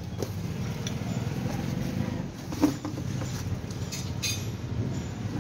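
Crushed charcoal scooped by hand and dropped into an earthing bore hole, giving scattered clinks and crunches, the loudest about two and a half and four seconds in, over a steady low hum.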